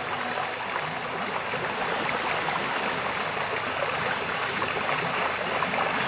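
Steady babbling of flowing water like a stream, from a relaxing background track; the track's held music notes stop just after the start, leaving only the water sound.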